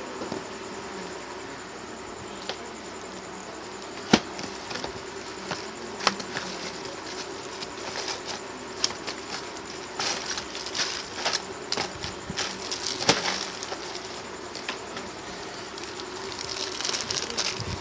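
A steady electrical buzz runs under small sharp clicks and taps from handling tools and the phone's circuit board at a repair bench. The taps come more thickly in the second half.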